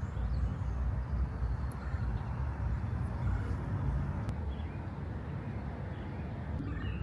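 Outdoor ambience: a steady low rumble with a fainter hiss, unbroken throughout.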